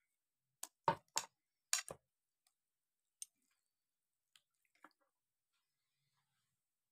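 Raw fish pieces tipped from a glass bowl landing in a plate of wet spice marinade: a cluster of about six short, soft wet slaps in the first two seconds, then two faint clicks later.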